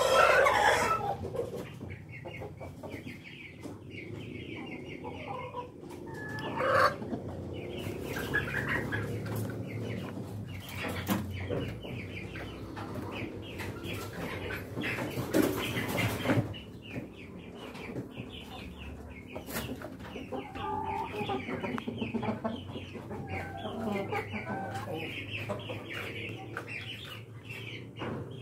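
A flock of brown hens clucking in a pen: a steady chatter of short clucks, with a few louder calls at the very start, about a quarter of the way in, and around the middle.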